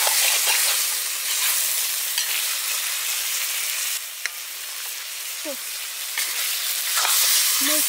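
Chicken pieces sizzling and frying in oil in a black iron wok, stirred with a metal spatula that scrapes and knocks against the pan.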